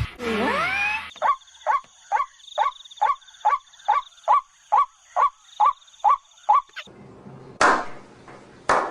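White-breasted waterhen calling: a loud gliding call, then a short call repeated monotonously about twice a second for several seconds, over a steady high ring. Two short bursts of noise come near the end.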